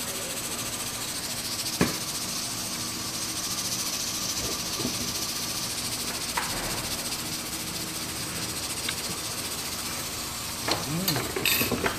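Steady kitchen hiss over a low hum, with a metal spoon clinking against the cooking pot about two seconds in. Near the end come more clinks and short mouth sounds as the soup is tasted from the spoon.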